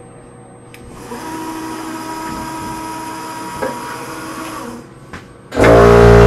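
CNC bed mill running its program: a steady motor whine for about four seconds, then near the end a much louder, steady machine drone starts suddenly and keeps going.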